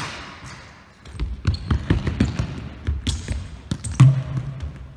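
Futsal ball kicks and bounces on a sports hall floor, ringing out in the big hall: a hard strike at the start with a long echo, a quick run of smaller thuds and knocks, then the loudest kick about four seconds in.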